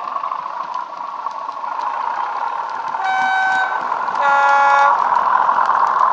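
Bachmann Class 37/4 model locomotive's DCC sound decoder playing a Class 37 diesel engine running, growing louder as the model approaches and passes. About three seconds in it sounds its two-tone horn: a higher note, then a lower note, each lasting under a second.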